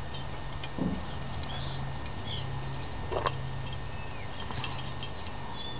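A steady low hum with small birds chirping, and two brief vocal sounds, about a second in and about three seconds in.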